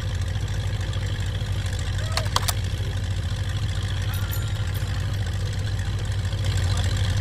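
A steady low hum of an engine or motor running, with two sharp clicks a little after two seconds in.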